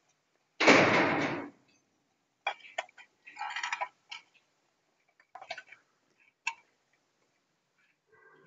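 Irregular crackles, sharp clicks and short sizzling bursts from an aluminium can being burned through by sunlight concentrated with a Fresnel lens. A loud noisy burst lasting about a second comes about half a second in.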